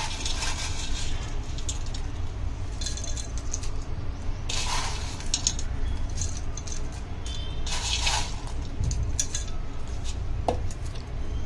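Farsan, the crunchy fried snack mix, being scattered onto misal in a dish: a rustling patter in three short bursts, with a few light clinks of utensils on the dishware.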